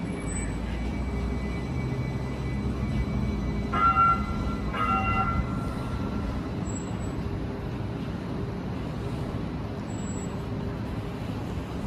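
Steady low hum of a powered-up streetcar standing at the curb, mixed with street noise. About four and five seconds in come two short ringing tones, the loudest sounds, the second fading out over a second or so.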